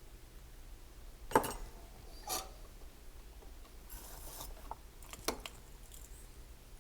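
Small tools being handled at a workbench: a few sharp clicks and taps, the loudest about a second and a half in, with a short scraping rub between them.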